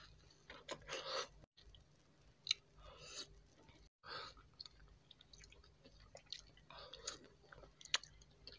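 Close-miked wet chewing and sucking on soft, juicy mango flesh: sticky mouth smacks and lip clicks coming in irregular clusters, with one sharp click near the end.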